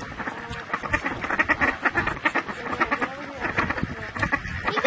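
Ducks, a white Pekin and mallards, quacking in a quick run of short calls, several a second: begging for the bread being held out to them.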